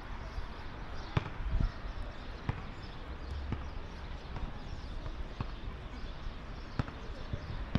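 A football being kicked during play, heard from a distance: several sharp thuds at irregular intervals over a steady low background noise.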